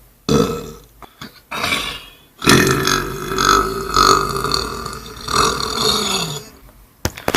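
A man belching: two short belches, then one long drawn-out belch lasting about four seconds.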